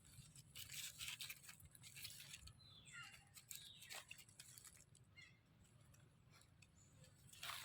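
Near silence, with faint scattered rustling and one faint falling squeak about three seconds in.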